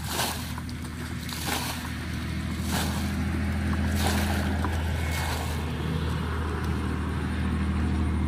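Water flung from a plastic bucket splashing out over the ground, about five throws roughly a second apart, over a steady low engine hum.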